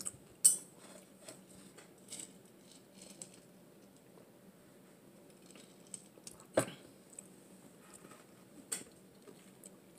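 Small sounds of drinking from a tumbler and handling it at the table: a few scattered soft clicks and mouth noises over a quiet background, with one louder click about six and a half seconds in.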